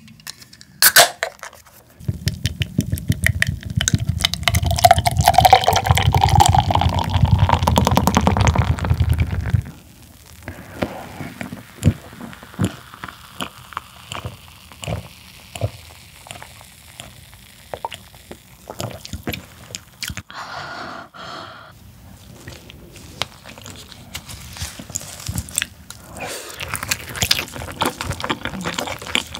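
Beer poured from a can into a glass mug for about eight seconds, the pitch of the fill rising as the glass fills, after a sharp click about a second in. Then quieter gulping and drinking sounds, and near the end small bites and chewing of glazed pork tail.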